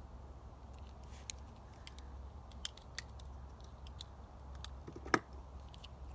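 Small plastic clicks and taps from a Bakugan toy and its plastic blister packaging being handled, a handful of scattered clicks with one sharper click about five seconds in, over a steady low rumble.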